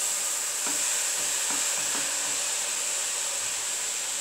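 Chopped taro (kochu) leaves dropped by the handful into a small pan, rustling faintly in the first couple of seconds over a steady hiss.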